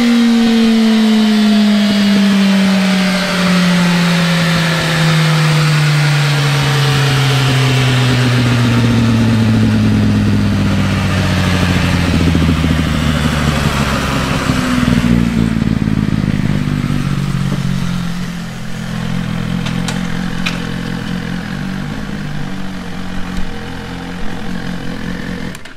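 2017 Suzuki GSX-R1000 inline-four, with stock header, catalytic converter and Yoshimura slip-on, winding down on a chassis dyno after a full-throttle pull. The engine note falls steadily from high revs for about fifteen seconds, then settles into a lower, uneven running note near idle.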